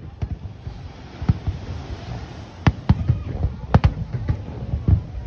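Fireworks going off: aerial shells bursting in a quick, irregular string of sharp bangs over a steady low background.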